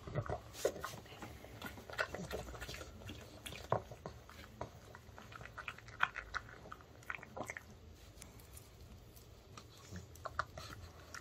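A pug chewing and licking up pieces of a homemade dog-safe baked chicken treat: irregular wet crunches, jaw clicks and lip smacks, thinning out briefly before it takes the next piece near the end.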